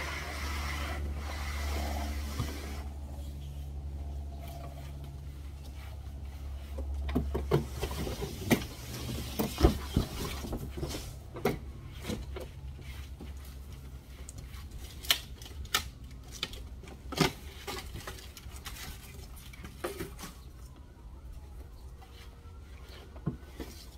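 A run of sharp knocks and thuds with some rustling, loudest a third of the way in, as a big cardboard shipping box is stripped off a boxed resin storage shed and its plastic parts are handled. A steady low hum lies underneath.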